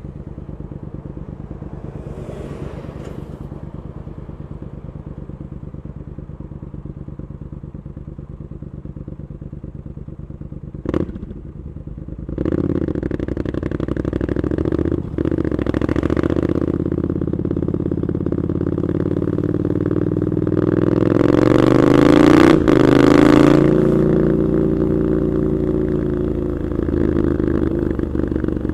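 Triumph Scrambler 900 parallel-twin through an Arrow exhaust, heard from the rider's seat. It runs low and steady at first, gives one quick sharp blip, then pulls away louder. The revs climb to a peak about three-quarters of the way through and drop suddenly at a gear change before it settles into a steady cruise.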